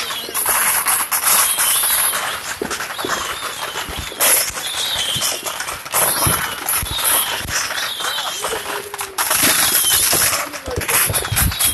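Consumer fireworks going off all around: a stream of sharp pops and bangs, with several bursts of dense crackling.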